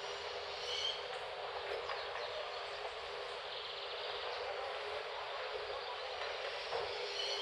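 Steady outdoor background noise, an even hiss-like wash, with a few short high chirps about a second in and again near the end.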